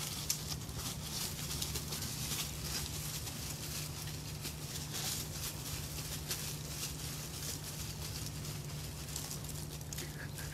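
Dog digging and scraping at dry dirt and leaf litter while burying a toy, a run of irregular scratchy rustles, over a steady low hum.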